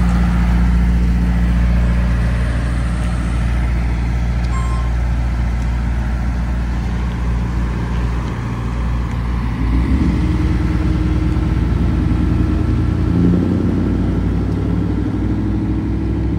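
Ice cream truck's engine running steadily and then fading as the truck drives off down the street. A second vehicle's engine, rougher and higher in pitch, comes in close about halfway through.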